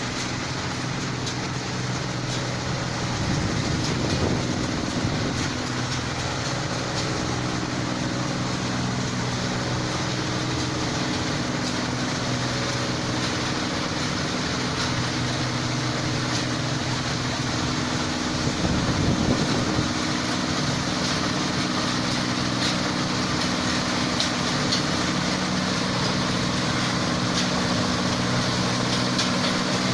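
Rice combine harvester's engine running steadily with a continuous mechanical clatter. It swells briefly louder twice, once a few seconds in and again about two-thirds through.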